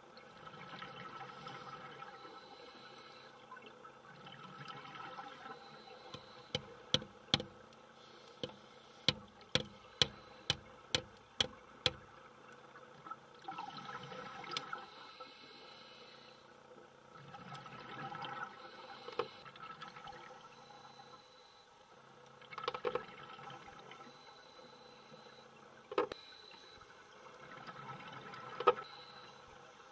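Underwater, a hammer taps a nail into reef rock: about a dozen sharp strikes in quick succession, with a few single taps later. Scuba regulators hiss and exhaled bubbles gurgle in recurring swells throughout.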